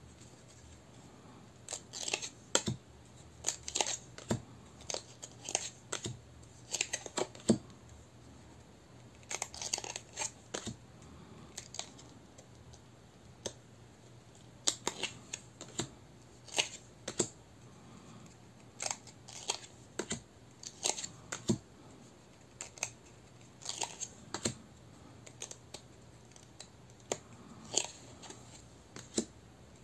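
Tarot cards being handled and laid down one after another, each card giving a sharp click or snap of cardstock, sometimes in quick clusters of two or three, at an uneven pace.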